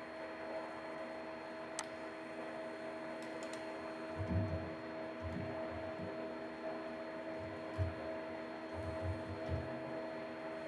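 Steady electrical mains hum, with scattered soft keystrokes and a few light clicks from typing on a computer keyboard.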